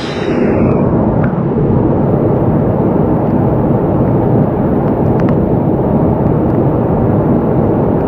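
Loud, steady, muffled roar of a rushing monsoon stream heard at close range during a crossing, mostly deep rumble.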